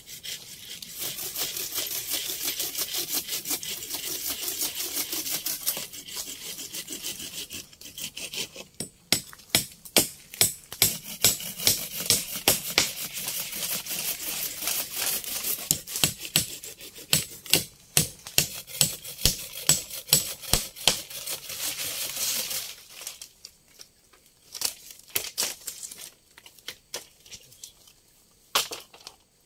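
Hand work with a tool: a steady scraping rustle, then a long run of quick sharp strokes, two or three a second, that thins to a few scattered knocks near the end.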